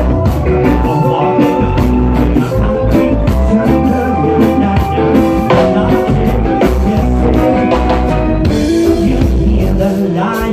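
Live reggae band playing: a steady drum beat, electric bass, guitars and keyboard, with a male singer's vocal over the top. Loud and full, as picked up close to the stage.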